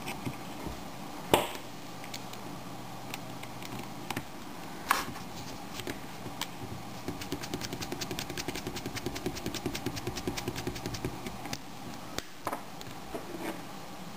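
Tiny screws being driven into the metal plate of a Creative Zen Sleek MP3 player with a precision screwdriver: a couple of sharp clicks, then a run of quick, even ticks lasting several seconds, and a few more clicks near the end.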